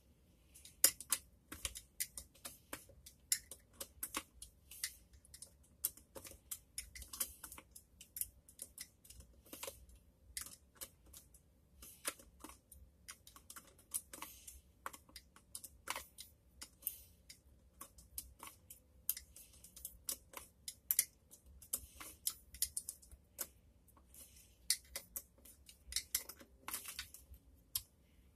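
Hand screwdriver backing screws out of a hard plastic e-bike battery case: a run of small, irregular clicks and ticks, several a second.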